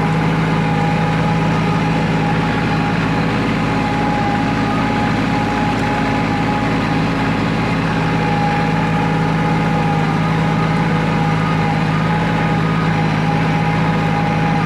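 Kubota compact tractor's diesel engine running at a steady speed, driving a rotary tiller.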